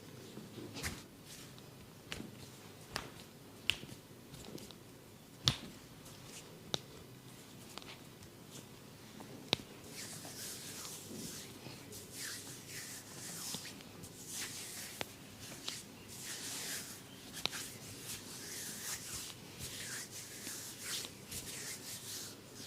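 A barber's hands at work during a head massage: sharp snapping clicks every second or two, and from about halfway on, continuous rubbing strokes on hair and skin.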